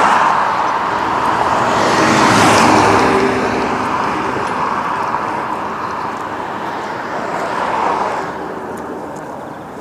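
Road traffic: motor vehicles passing close by, the noise swelling as each goes past, about two to three seconds in and again near the end.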